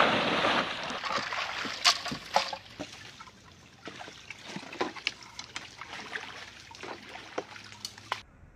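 Shallow water splashing as a person wades through it, dying away after about a second and a half. Then come small trickling water sounds and scattered sharp knocks of feet and gear against a wooden dugout canoe as he climbs in and pushes off. The sound cuts off abruptly near the end.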